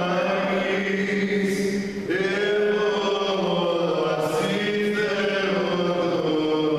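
Byzantine chant in Greek Orthodox liturgy, sung on long held notes that shift in pitch, with a short break for breath about two seconds in.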